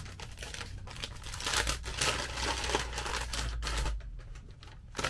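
Brown kraft paper crinkling and rustling as a small wrapped package is opened by hand: a dense run of crackles that dies down about four seconds in.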